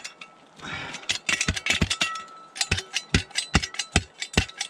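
Hand tool chipping at hard, packed ground: quick, regular knocks, about three to four a second, with a short scraping rush near the start.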